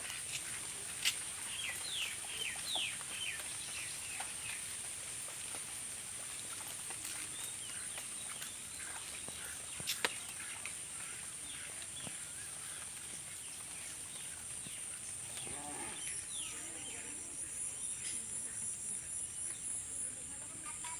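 Outdoor rural ambience: a steady high insect drone throughout, with short falling bird chirps in the first few seconds. A sharp click comes about ten seconds in, and a pulsing insect trill joins near the end.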